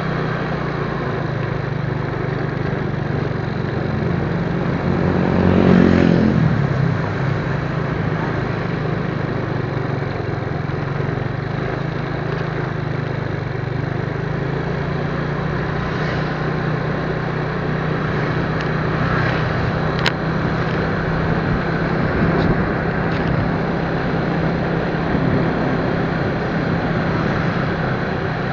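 Motorcycle engine running steadily on the road under a constant rush of road noise. About five seconds in, another vehicle passes close, swelling and then fading.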